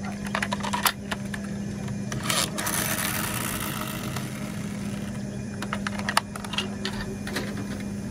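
Small clicks and taps of a toy camper van being handled, its hinged plastic panels and doors opened and shut, over a steady low hum.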